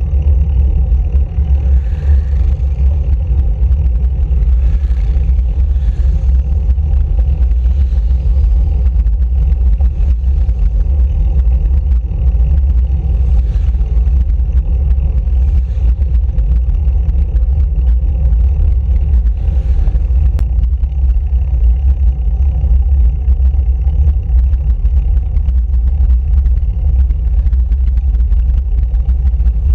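Steady low wind rumble buffeting a handlebar-mounted camera's microphone as a road bike descends at speed.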